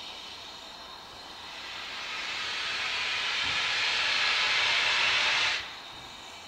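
Steam locomotive letting off steam: a hiss that swells over a few seconds, then cuts off suddenly.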